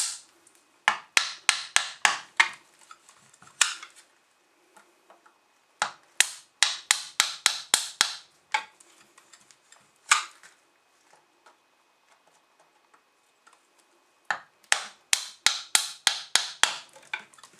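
Sharp snaps coming in quick runs of several, about four a second, with single snaps between and short pauses, as a hand tool levers glued PVC pipe out of an ABS fitting's socket. Each snap is the glued pipe wall breaking loose and moving up a little farther.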